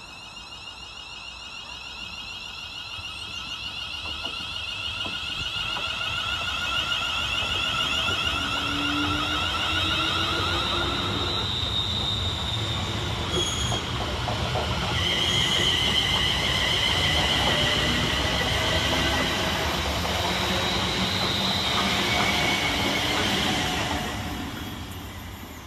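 Two coupled Class 350 Desiro electric multiple units pulling away and passing close by. Their traction whine rises in pitch as they gather speed, under a growing rumble of wheels on the rails as the coaches go past. The sound falls away near the end as the last coach clears.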